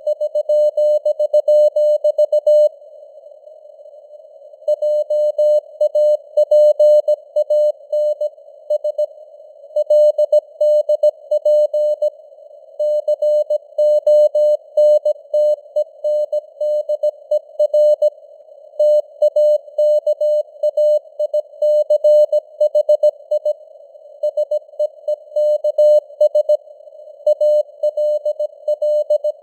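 Morse code (CW) sent at 17 words per minute: a single mid-pitched tone keyed on and off in dots and dashes over a faint hiss of simulated radio static. There is a pause of about two seconds roughly three seconds in.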